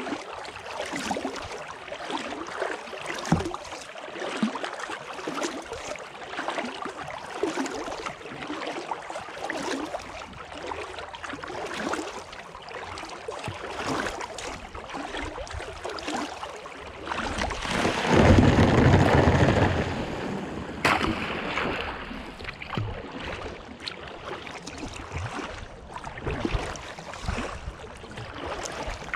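Kayak paddle strokes on calm water, a dip and drip about once a second, with water running off the blades. About two-thirds of the way through, a louder rushing noise rises for a couple of seconds, followed by a sharp click.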